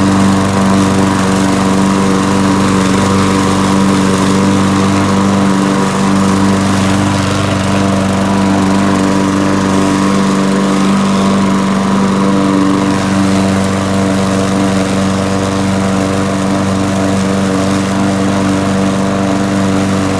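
Gas walk-behind lawn mower engine running steadily and loudly at cutting speed while the mower is pushed through grass.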